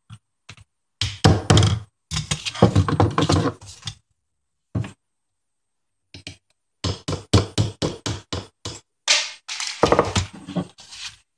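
Hammer tapping a steel pin punch to drive a tight frame pin out of an ISSC M22 pistol's lower: runs of sharp metal taps, quickest in the second half at about four or five strikes a second.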